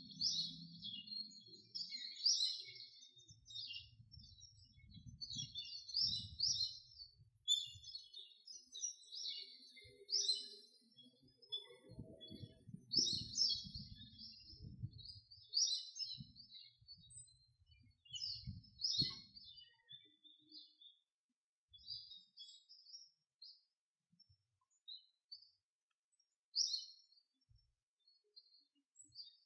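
Small songbirds chirping, many short high calls in quick clusters that thin out after about twenty seconds. A faint low rumble comes and goes underneath in the first two-thirds.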